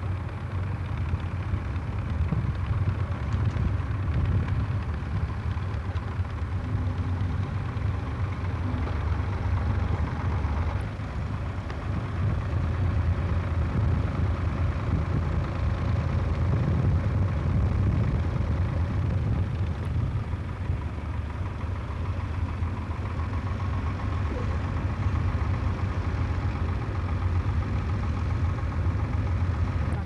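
Tractor engine running steadily: a continuous low rumble.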